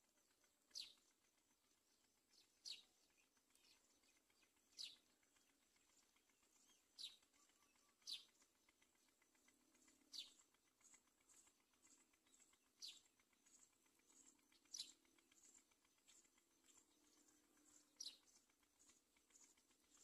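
A bird's short, high chirps that drop quickly in pitch, about ten of them spaced one to three seconds apart, faint over near silence.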